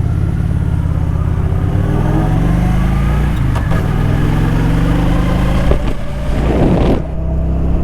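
A road vehicle's engine pulling away under acceleration. Its pitch climbs, drops at a gear change about three seconds in, then climbs again.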